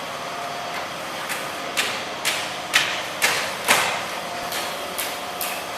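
A steady machine hum with a faint steady tone, joined from about a second in by a run of sharp knocks or clacks, about two a second, each ringing briefly.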